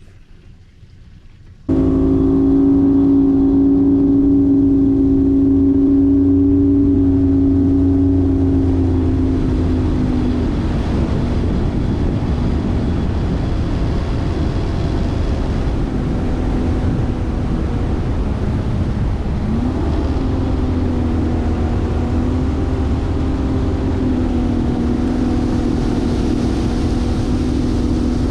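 Bass boat's outboard motor running steadily at speed, with wind and water rushing past. It cuts in suddenly about two seconds in and eases slightly in pitch partway through.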